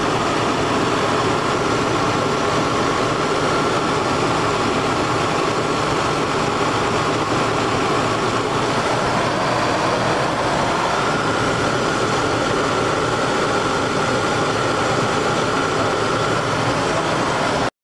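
Toyota Land Cruiser engine idling, heard from under the open hood, a steady running noise with a faint high whine through much of it. The A/C is on but the compressor is not engaging, because the system holds almost no refrigerant. The sound cuts off abruptly just before the end.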